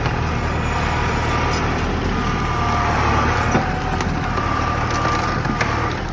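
An excavator's engine running steadily with a faint high whine, and a few light cracks or clicks over it.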